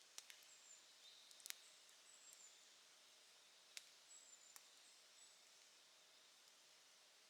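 Wood fire crackling faintly, with a few sharp pops, the loudest about a second and a half in.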